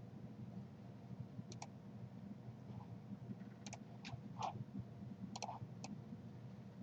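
Computer mouse clicking about seven times, including two quick double clicks, over a faint low electrical hum.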